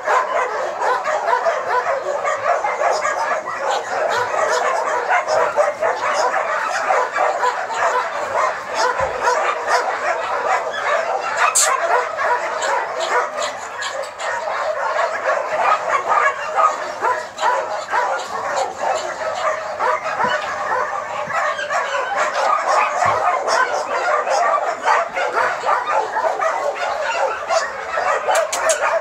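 Many dogs barking and yelping at once in a continuous din that never lets up.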